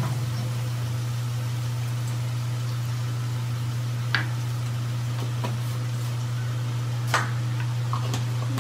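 A steady low motor hum with a few short, sharp clicks, the loudest of them about two-thirds of the way in.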